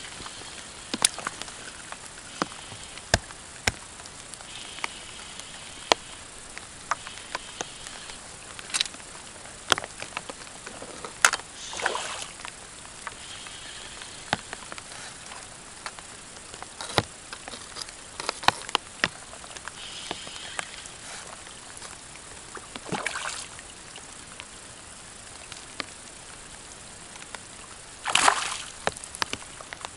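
Water splashing and sloshing in short bursts, three of them louder, about a third of the way in, two-thirds in and near the end, with many sharp clicks and knocks scattered between.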